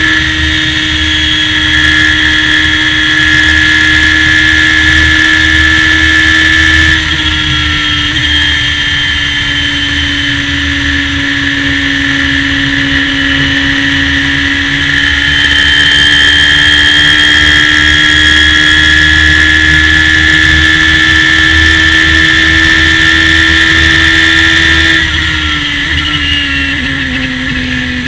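Radical SR3 race car engine running at high revs at full throttle, heard from onboard the car. The revs ease off slightly about seven seconds in, build again around the middle, then fall away near the end as the car slows into a corner.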